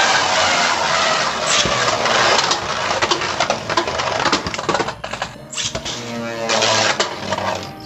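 Beyblade Burst tops spinning and clashing in a plastic stadium: a steady whirring scrape full of rapid clicks from the collisions.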